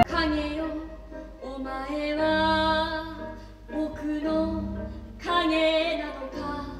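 Music: a woman's voice singing a melody in several held phrases, with a soft low accompaniment underneath.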